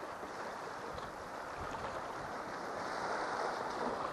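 Sea washing against the rocks of a breakwater: a steady wash of water that builds a little louder toward the end.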